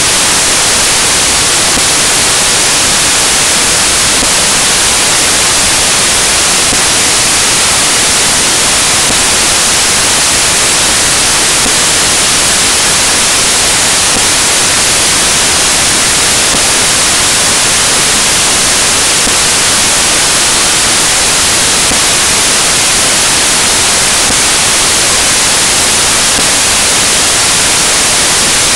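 Loud, steady static hiss like white noise, unchanging throughout, with nothing else audible: a broken or corrupted audio track rather than any sound of the scene.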